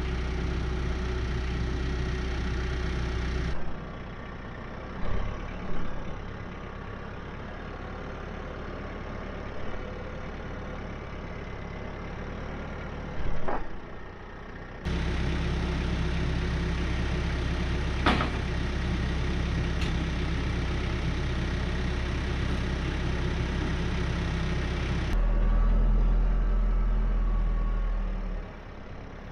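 TYM 574 tractor's diesel engine running steadily while its front loader lifts a roof truss. The hum jumps abruptly in level and tone a few times, with a few sharp knocks.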